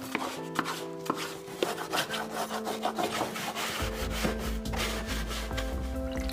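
Stiff brush scrubbing dry grass clippings off the plastic underside of a Husqvarna Automower robotic lawn mower, in many quick scratching strokes, over soft background music.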